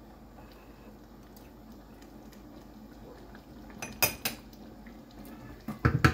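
Stainless steel cookware clinking: a single sharp clink about four seconds in, then a clatter of a metal pot lid being lifted against its pot near the end.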